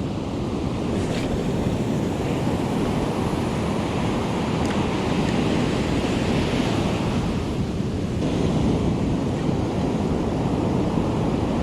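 Ocean surf breaking and washing on the beach in a steady rush, with wind buffeting the microphone.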